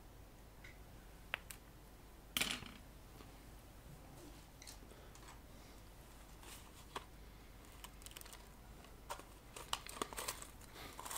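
Small handling noises of tools and parts on a workbench: scattered light clicks and taps, one sharper clatter about two seconds in, and a run of rustling and clicking near the end.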